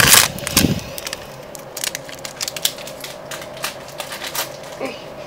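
Foil booster-pack wrapper crinkling as a stack of trading cards is pulled out, followed by a few light scattered clicks and taps.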